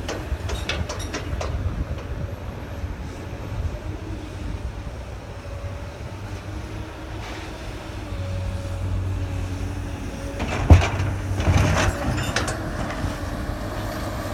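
Excavator at work unloading a steel railway gondola. Its diesel engine runs with a steady low rumble and hum. About ten seconds in comes a loud metallic bang, followed by a second or so of clanking, as the bucket strikes the gondola's steel body.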